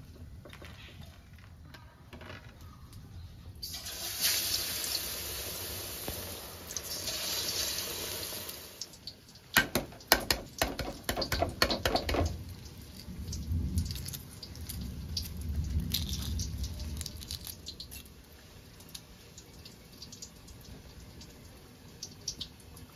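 Water running from a kitchen tap for about five seconds, starting and stopping abruptly. A quick run of sharp clinks and knocks follows.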